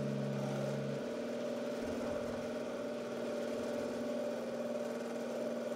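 Homemade mini lathe running, its electric motor and spindle giving a steady hum while it turns a chuck back-plate blank. A lower part of the hum drops out about a second in.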